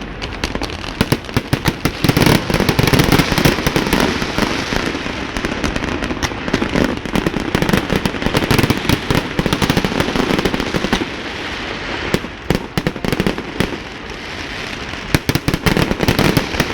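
Fireworks display: a dense, continuous run of sharp crackling reports and deeper booming bursts, heaviest for several seconds after the start and again near the end.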